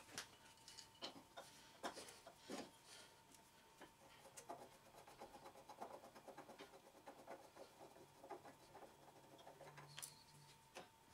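Near silence: faint scattered clicks and taps over a faint steady tone.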